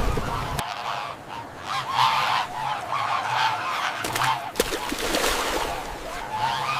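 A flock of birds calling, many calls overlapping and repeating every second or so.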